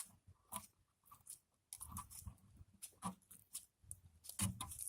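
Handling noise from the phone being repositioned: irregular clicks, taps and scrapes, with a couple of duller thumps about two seconds in and near the end.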